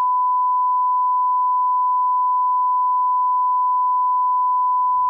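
Censor bleep: one steady 1 kHz tone held at a single pitch and level, replacing speech, and cutting off abruptly at the end.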